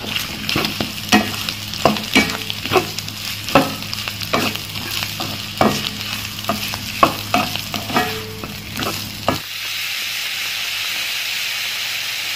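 Sliced meatballs stir-frying in chili paste in a wok: a steady sizzle under scrapes and knocks of the spatula against the pan, about two a second. About nine seconds in the stirring stops and only the sizzle carries on.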